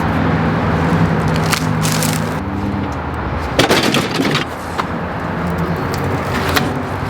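Two-stroke chainsaw engine running, its pitch stepping down about two and a half seconds in, with a short burst of sharp cracking about three and a half seconds in.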